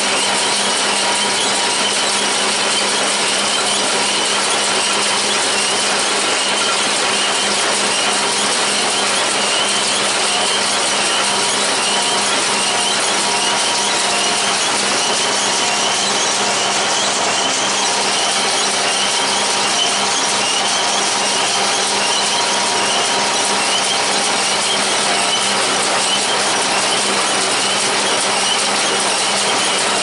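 John Deere 336 small square baler running steadily as it picks up and bales hay, behind a John Deere 3020 tractor's engine, an even machine noise with a constant hum throughout.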